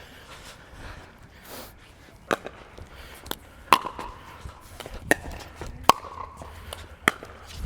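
Paddles striking a hard ball back and forth in a rally: sharp pops roughly a second apart, some with a brief ringing tone.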